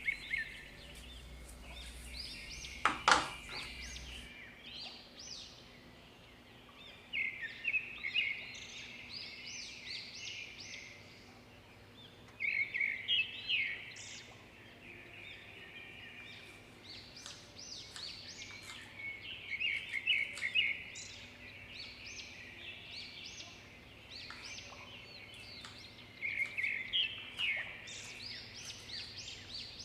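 Songbirds chirping in bursts of rapid, trilled phrases every five or six seconds, over a faint steady background. A single sharp knock about three seconds in.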